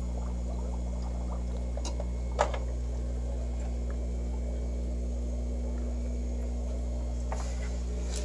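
Steady low electrical hum of aquarium equipment in a fish room, with a single short knock about two and a half seconds in.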